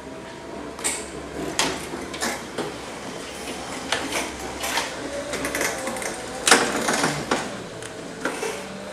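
Power wheelchairs driving through a corridor and doorway: irregular clicks and knocks over a faint motor whine, with one sharper knock about two-thirds of the way through.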